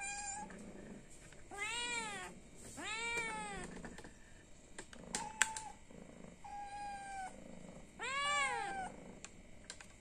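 A hungry cat meowing for food: three loud drawn-out meows that rise and fall in pitch, with shorter, thinner, level-pitched mews between them.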